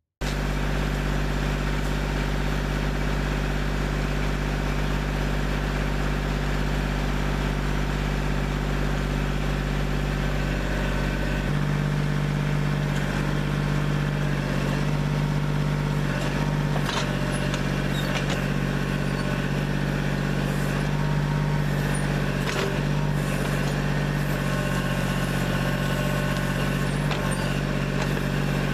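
Kubota backhoe's diesel engine running steadily under work, its note growing a little stronger about eleven seconds in. From about halfway through, a few short knocks sound over the engine.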